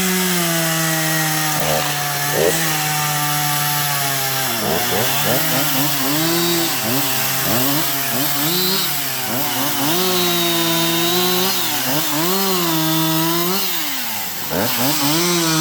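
Chainsaw running at high revs while cutting limbs. It holds a steady pitch for a few seconds, then repeatedly bogs down and revs back up as the chain meets and clears the wood.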